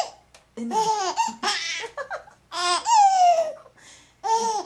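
Four-month-old baby laughing in four or so bursts of high-pitched squeals. The longest squeal, a bit under three seconds in, falls in pitch.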